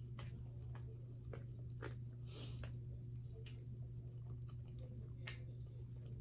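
Close-miked chewing and mouth sounds of a person eating soft food, with scattered short wet clicks and a brief smack about two and a half seconds in, over a steady low hum.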